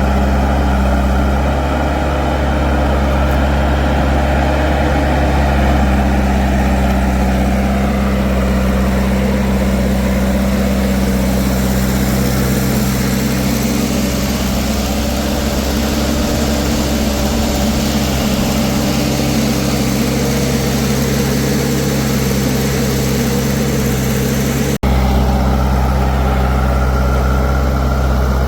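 Heavy diesel engine running steadily at constant speed, a continuous low drone, with a momentary break in the sound near the end.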